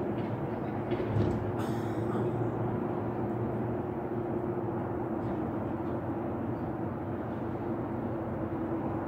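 Steady mechanical drone with a constant low hum, with a brief faint rustle about two seconds in.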